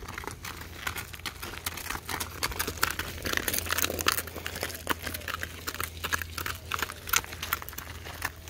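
Welsh pony walking in harness, its hooves and the cart's wheels crunching irregularly on gravel and packed dirt.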